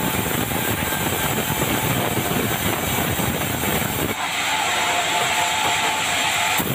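Sawmill band saw ripping dry bengkirai (yellow balau) timber into beams, a heavy steady cutting noise under load. About four seconds in the cut ends and the saw runs free with a higher ringing tone. Near the end the next board enters the blade and the heavy cutting noise returns.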